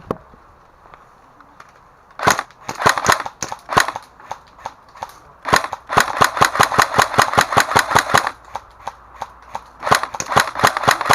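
Airsoft guns firing in quick strings of sharp clicking shots, about nine a second: three runs of fire, the longest lasting over two seconds near the middle.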